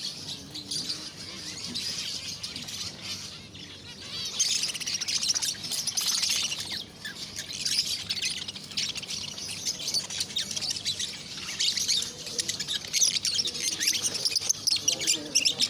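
Many caged birds chirping and twittering at once, a dense, unbroken chorus that grows louder about four seconds in.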